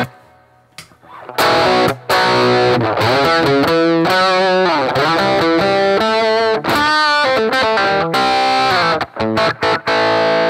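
Rickenbacker 330 electric guitar with toaster pickups, played on the bridge pickup through a germanium treble booster, giving a distorted lead sound. A few short stabs come first, then a continuous run of notes, ending on a chord left ringing.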